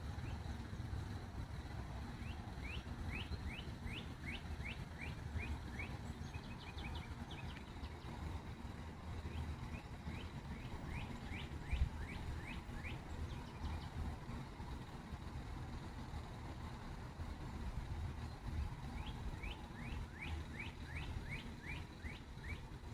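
A bird singing three bouts of quick, short, downward-sliding notes, over a steady low rumble, with one brief thump about halfway through.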